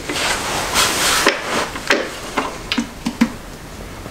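Crinkling and rustling of plastic sheeting and paper towel as a hand works around a motorcycle's rear brake caliper during bleeding. This is followed by about half a dozen light clicks and knocks from handling.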